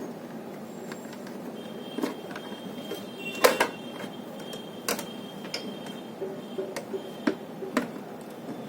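Screwdriver levering the switch out of an electronic hanging scale's plastic casing: a handful of scattered sharp clicks and snaps, metal on plastic, the loudest about three and a half seconds in.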